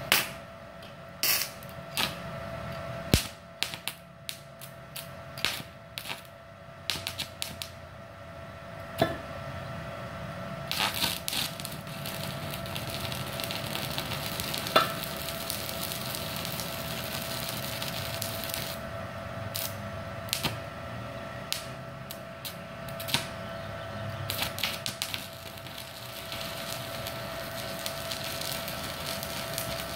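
Stick welding with a 3.2 mm electrode at about 80–90 A on a Multipro Solid 125A-ST IGBT inverter welder. Sharp crackles and snaps as the arc is struck over the first ten seconds, then the arc's steady crackling sizzle from about eleven seconds on.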